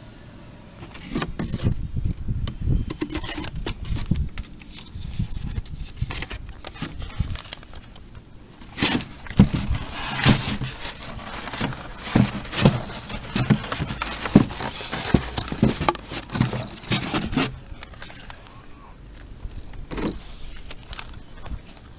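Cardboard box and packaging being handled as a toy R/C car is taken out: rustling, scraping and many sharp knocks and clicks, dying down for the last few seconds.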